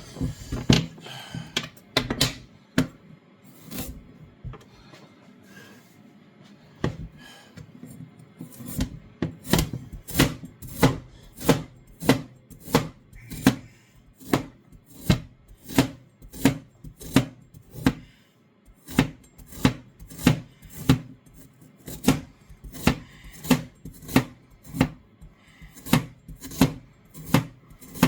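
Kitchen knife chopping a large carrot on a chopping board. A few irregular knocks come first, then after a short lull a steady run of chops, about three every two seconds, starting about nine seconds in.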